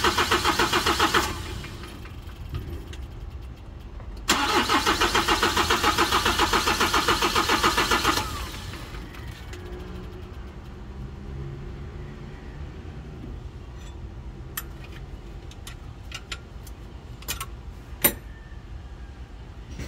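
Kia Bongo III common-rail diesel engine being cranked on its starter in two long attempts of about four seconds each, with a steady rhythmic chug. It does not catch: the hard starting typical of a clogged fuel filter or worn injectors. A few sharp clicks follow near the end.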